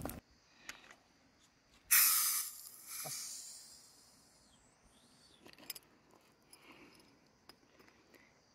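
A capped glass bottle of a fizzy drink is opened about two seconds in: a sudden loud gas hiss that fades away over about a second.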